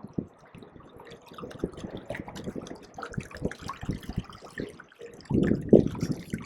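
Water splashing and trickling in small irregular spurts, with a louder surge of splashing about five seconds in.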